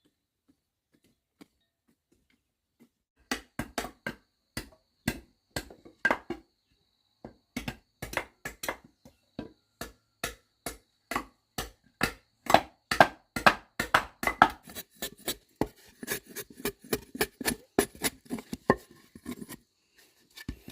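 Repeated sharp strikes of a hand tool on wood: about three seconds of quiet, then knocks that come irregularly at first and then quicker, around three or four a second.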